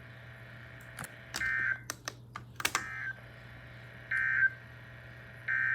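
Emergency Alert System (SAME) end-of-message signal: three short, buzzy two-tone data bursts about 1.3 s apart, with a few sharp clicks around the first two. Just before the end a longer burst of the same data tone begins, the header of the next alert, over a steady low hum.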